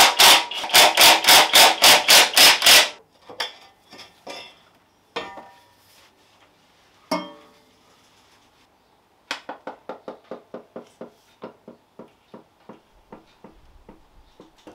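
Rapid, loud hammer blows on metal, about five a second, stopping about three seconds in. Scattered knocks and clanks of tools on metal follow, then from about nine seconds a run of lighter clicks, about four a second, fading out.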